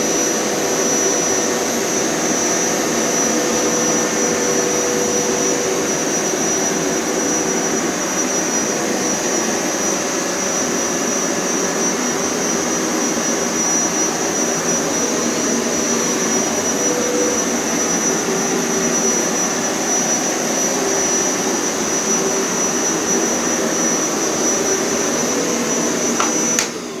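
Hoover Power Scrub Elite carpet cleaner running in wash mode: a steady motor drone with a high whine, shut off suddenly just before the end.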